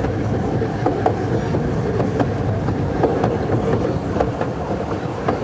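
Miniature railway train running along its 12.25-inch gauge track, heard from aboard: a steady rumble of the wheels on the rails, with a sharp click roughly once a second as they pass over rail joints.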